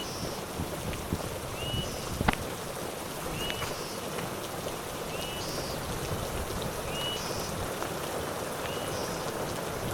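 Steady rain falling, with a short chirping call repeating about every second and a half and a brief higher rattling note between the chirps. A single sharp tap about two seconds in.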